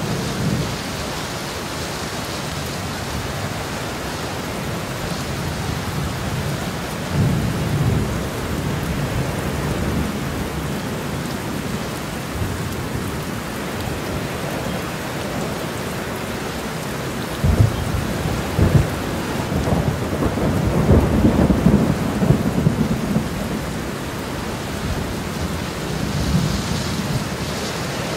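Steady rain with thunder rolling through it: a low rumble about a quarter of the way in, then a louder spell past the middle of sharp cracks and rumbling lasting several seconds, and a softer rumble near the end.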